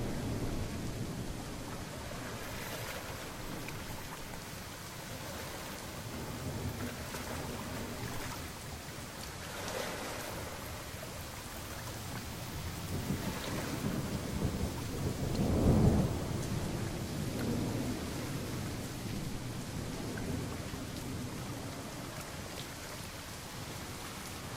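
Steady rain falling, with rolling thunder rumbling underneath; the loudest clap of thunder comes about sixteen seconds in, with smaller rumbles around ten and fourteen seconds in.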